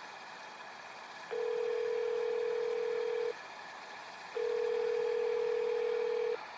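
Telephone ringback tone of an outgoing call ringing at the other end: two steady tones of about two seconds each, a second apart.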